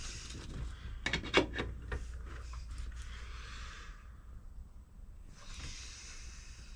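A person's breathy exhalation, a long hiss-like breath out followed by a shorter one near the end.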